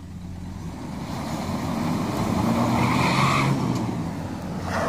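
Pickup truck engine revving under load as it tows a flatbed trailer up out of a ditch, swelling to a peak about three seconds in with a rush of noise, then easing off.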